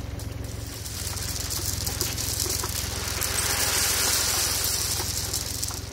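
Weidemann compact loader's engine idling with a steady low pulse while gravel pours and rattles out of its tipped bucket; the gravel hiss builds about a second in and is loudest near the end.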